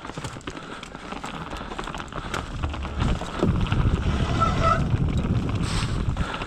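Mountain bike rolling fast over a wooden boardwalk, the tyres clattering across the slats with the bike rattling, louder from about halfway in.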